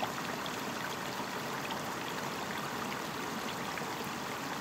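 A small mountain creek running shallow over rocks and woody debris: a steady, even rush of water.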